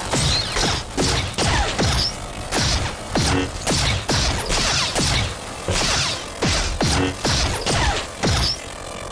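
Replica lightsaber's sound board playing the clash effects of a Z6 riot baton sound font: a quick run of sharp clashes, about one every two-thirds of a second, over the blade's steady hum.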